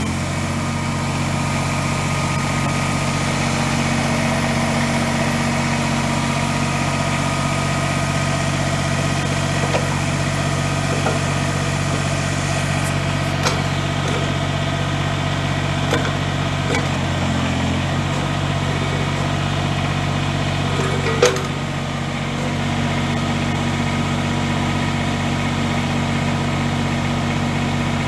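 Kubota BX sub-compact tractor's three-cylinder diesel engine running steadily just after being started, with a few sharp knocks scattered through it.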